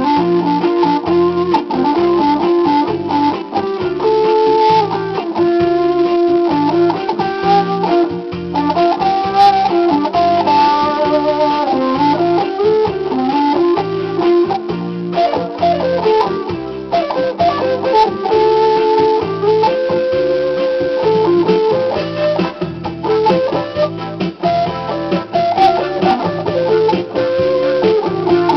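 Electric guitar playing a waltz, a single-note melody over a steady, evenly repeating bass part.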